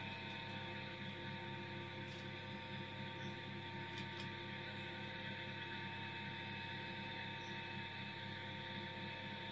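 Steady electrical mains hum made of several constant tones, with a couple of faint ticks.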